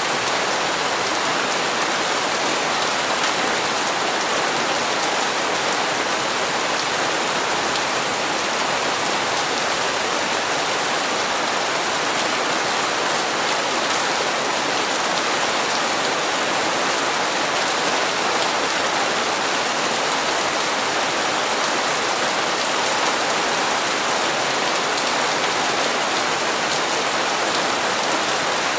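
Steady rain falling and pattering on hard surfaces, an even hiss with no breaks or thunder.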